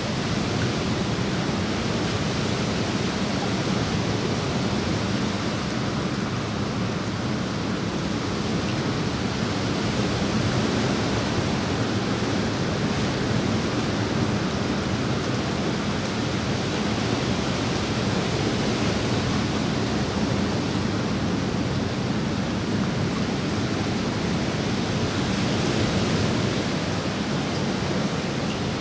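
Steady rain falling onto a swimming pool's surface, an even hiss with no single loud event.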